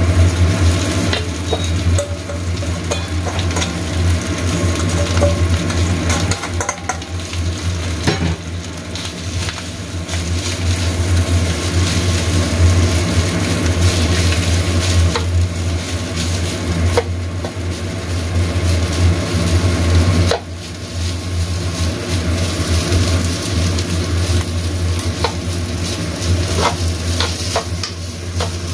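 Rice frying in oil in a black wok, sizzling, while a spatula stirs and scrapes it against the pan with scattered clicks and knocks. A steady low hum runs underneath.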